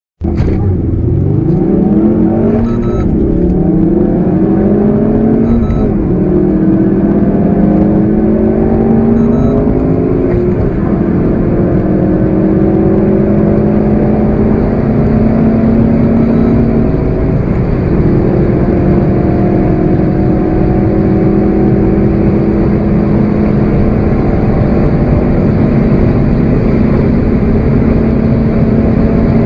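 Turbocharged four-cylinder hot hatchback engine under full-throttle acceleration from a standstill, pitch climbing through the gears with upshifts about 3, 6, 10 and 17 seconds in, then pulling steadily at high speed.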